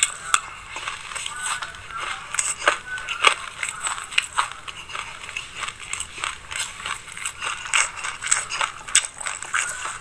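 A person chewing a mouthful of black sesame seeds close to the microphone, a dense, irregular crunching and crackling.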